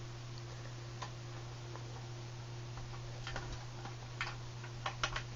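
Small scattered clicks and light metal taps of a screwdriver and the long stock screw being worked out of an airsoft Thompson's stock, sparse at first and busier over the last two seconds, over a steady low hum.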